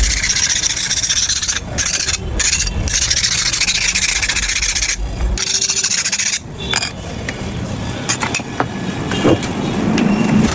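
Abrasive hand work on a hard surface: continuous rasping, rubbing strokes with a few brief breaks, fading to quieter rubbing and light clicks after about six seconds.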